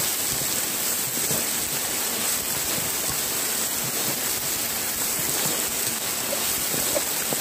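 Steady rain falling, an even hiss of water without a break.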